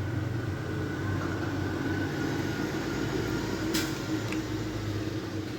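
A steady low mechanical hum, with a single brief click about two-thirds of the way through.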